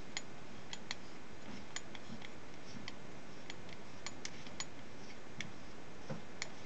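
Scattered faint, sharp clicks at an uneven pace as fingers turn a threaded cone out of a Pentax 135mm lens barrel, small metal and plastic parts ticking against each other, over a steady hiss.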